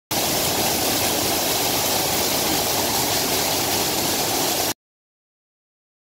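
Waterfall spilling over a stepped rock face into a pool: a steady rush of falling water that cuts off suddenly near the end.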